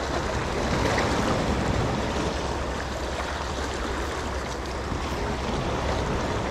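Small sea waves washing and splashing steadily against the rocks of a stone jetty.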